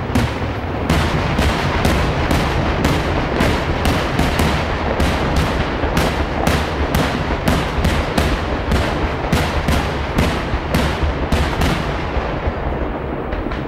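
Daytime aerial fireworks: a rapid, continuous barrage of shells bursting overhead, about two sharp bangs a second over a steady rumble. The bangs grow duller near the end.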